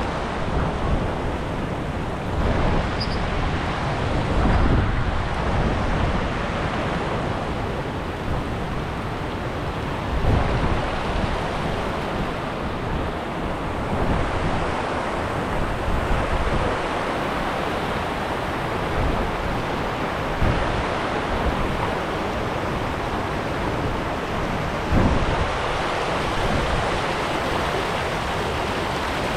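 River water rushing steadily over rapids, with wind buffeting the microphone in uneven gusts.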